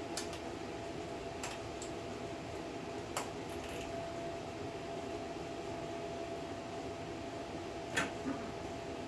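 Steady fan-like background hum with a faint high tone, broken by a few light clicks and clinks of parts being handled. The sharpest click comes about eight seconds in. The small engine is not running.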